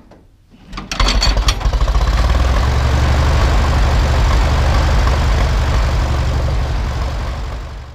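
Ferguson TED20 tractor's four-cylinder engine hand-cranked and catching about a second in, then running steadily.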